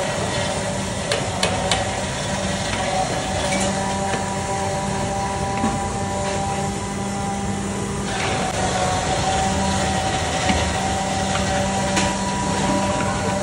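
Steady hum and hiss of a busy street-food kitchen, with scattered sharp knocks of a metal utensil against a large cooking pot. The hum briefly drops about eight seconds in.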